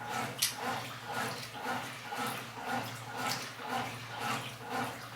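Washing machine agitating its load, the water sloshing back and forth in a steady rhythm of about three strokes a second, over a low steady hum.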